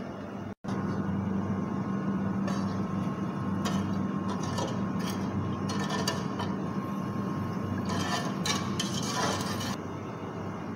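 A metal spoon stirring milk in an aluminium pot, scraping and clinking against the pot now and then, over a steady low hum.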